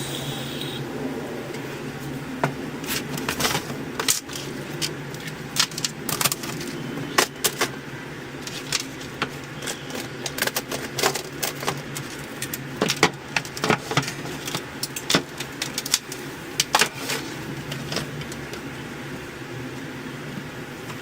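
Hot-wire foam cutter slicing through polystyrene foam, the foam giving many short, irregular squeaks and creaks as the wire passes through it, over a steady low hum.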